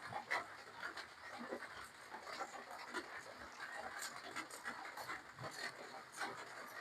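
Close-up eating sounds of seafood papaya salad and rice noodles being chewed: a steady run of small, irregular wet clicks and smacks from the mouth.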